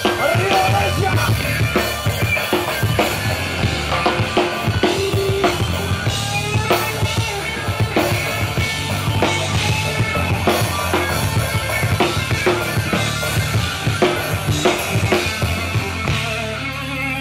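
Live rock band playing loud through a stage PA: a drum kit with busy kick and snare hits over electric guitar and bass guitar. Near the end the drum hits stop and held notes ring on.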